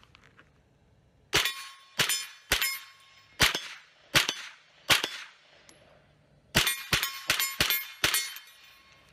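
AR-15 rifle fired at steel targets. About six shots come half a second to a second apart, then a quicker string of about seven, with steel plates ringing after some of the hits.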